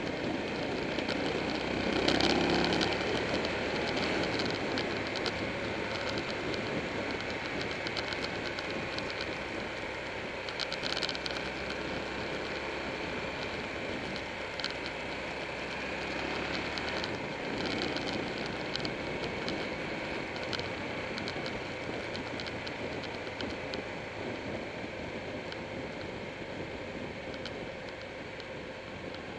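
Wind rush and road noise from a Buell 1125R's 1125 cc V-twin motorcycle being ridden at speed, the engine a steady drone under the wind. Scattered light ticks and rattles run through it, and it swells briefly about two seconds in.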